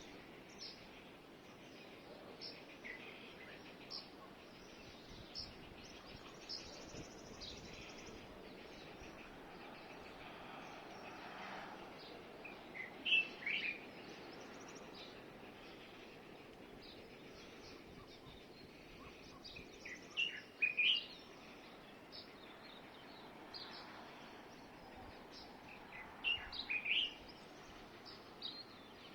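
Wild birds chirping and calling over a steady background hiss: short high chirps throughout, with three louder bursts of calls, about 13 s, 20 s and 26 s in.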